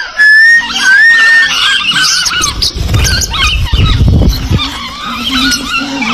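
Lovebirds chirping and squawking, with a few rising whistled calls near the start and a rough rustling noise for about a second and a half around the middle.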